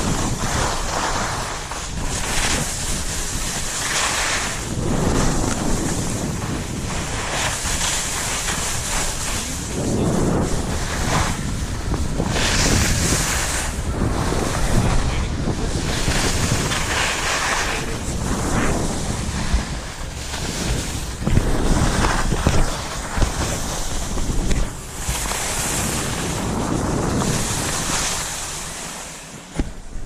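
Wind rushing over the camera microphone while skiing downhill, mixed with skis hissing and scraping over packed snow. The rushing swells and eases every second or two.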